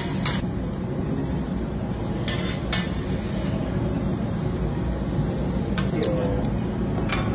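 Metal teppanyaki spatulas clinking and scraping on a steel griddle: a handful of short sharp clinks spread through, over a steady low background hum.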